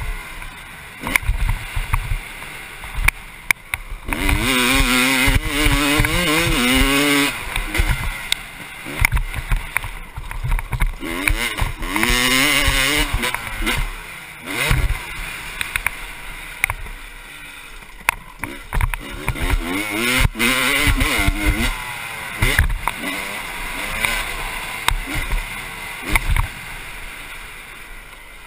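1996 Honda CR250's two-stroke single-cylinder engine revving up and falling back again and again as the bike is ridden over a dirt track, with a rushing noise and frequent sharp knocks.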